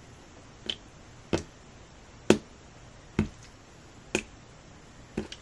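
Blue slime being lifted and stretched by hand, giving short sharp wet clicks and pops, about one a second, the last a quick double.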